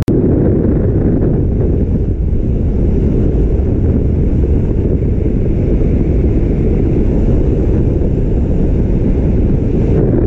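Loud, steady wind rushing and buffeting over the microphone from the airflow of a fast speed-flying descent under a small speed wing.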